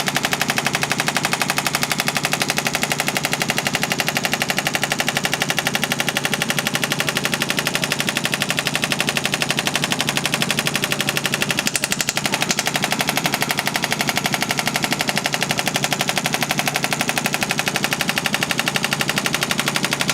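Radial shockwave therapy applicator firing steadily against the neck and upper back: a rapid, even train of sharp clicks, many a second, without a break.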